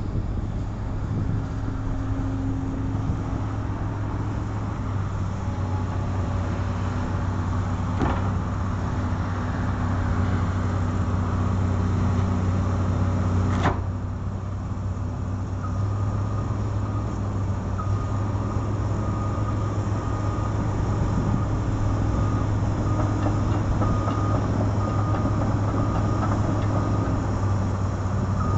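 Komatsu PC200LC-8 excavator's diesel engine running steadily under hydraulic load as the upper structure swings and the boom and arm move. Two sharp knocks come a few seconds apart in the first half, and a thin, broken high tone sounds through the second half.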